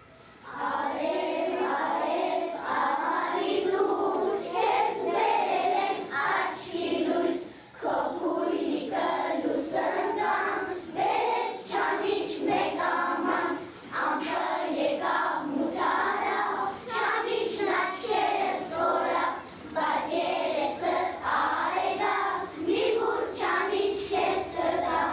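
A group of young children singing a song together, starting about half a second in.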